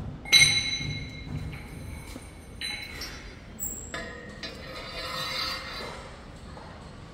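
Steel impeller hubs and the stainless stirrer shaft clinking together as the blades are fitted, each knock ringing on and dying away. The loudest clink comes just after the start, with further knocks about two and a half and four seconds in.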